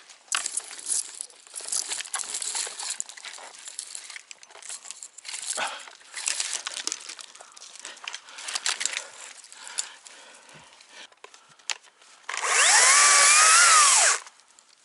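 Irregular crackling and scraping of branches and foliage being handled, then about twelve seconds in a battery chainsaw runs for about two seconds, its motor whine rising and falling with the chain noise.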